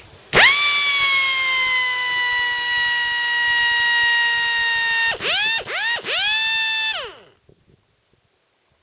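Chicago Pneumatic air hammer starting up and running flat out with a high, steady whine as soon as the air is connected, because its trigger switch is stuck on; the owner thinks something is stuck inside the switch, probably an O-ring. Near the end it cuts out and catches three times in quick succession, then winds down with falling pitch.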